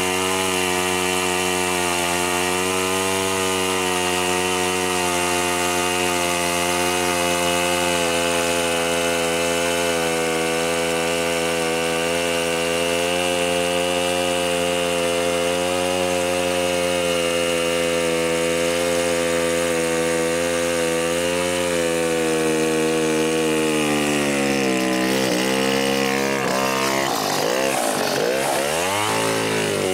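Yuzhoukee 105cc two-stroke chainsaw with a 42-inch bar running at high revs while cutting through a large log, its note wavering under load; near the end the revs dip and rise several times. The saw cuts better with its centrifugal clutch freshly degreased, though the owner thinks it is still short of power and its carburetor's high-speed mixture needs adjusting.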